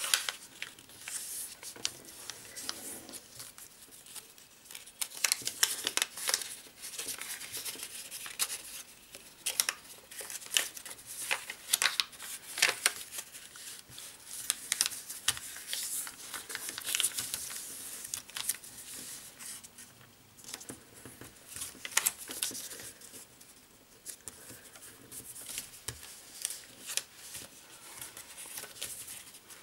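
A sheet of origami paper being folded and creased by hand, rustling and crinkling with many sharp crackles as the folds are pressed down.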